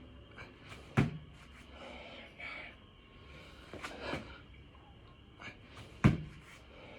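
Two heavy thuds about five seconds apart, a person doing six-count burpees hitting the floor, with hard, noisy breathing between the reps.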